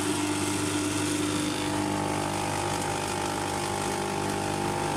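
De'Longhi pump espresso machine running its pump with a steady buzz, building pressure before the espresso starts to run. A higher whine joins the buzz about two seconds in.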